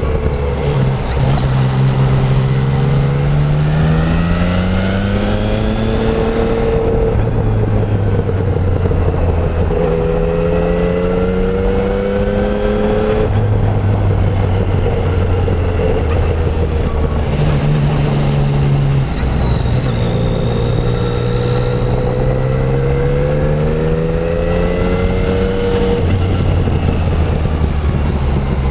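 Yamaha Tracer 900's 847 cc three-cylinder engine on the move through its stock exhaust: the engine note climbs in pitch under acceleration several times, each climb ending in a drop at a gear change made without a quickshifter, with steady cruising stretches between. Wind rush runs under the engine.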